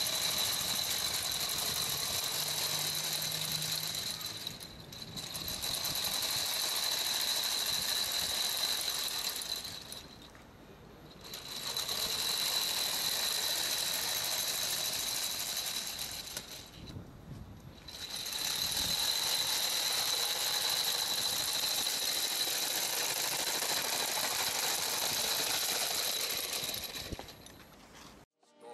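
Electric skateboard on metal omnidirectional wheels rolling over stone paving: a steady rattling whir from the wheel rollers with a constant high-pitched motor whine, easing off briefly three times.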